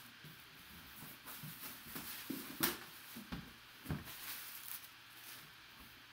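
Cardboard box being handled and opened by hand: irregular scraping and rustling of cardboard with a few light taps and knocks, the sharpest about two and a half seconds in.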